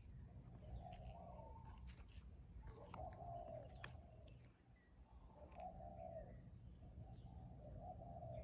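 Faint bird calls: a low call, each lasting under a second, repeated four times at about two-second intervals, with a few short high chirps between them, over a steady low rumble.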